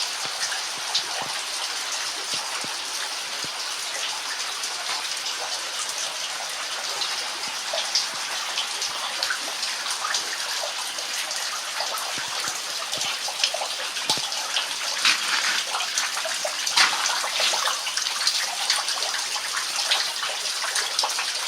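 Meltwater steadily trickling and dripping from thawing icicles in an ice cave, many separate drips ticking irregularly over a constant running-water hiss.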